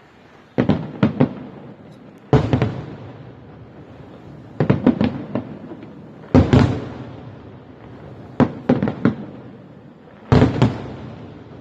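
Aerial fireworks shells bursting overhead: sharp bangs about every two seconds, several coming in quick runs of two or three, each trailing off in a rumbling echo.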